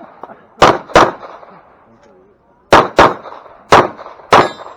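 Glock pistol fired rapidly on a practical-shooting stage: two quick shots, a pause of more than a second, then four more in quick succession.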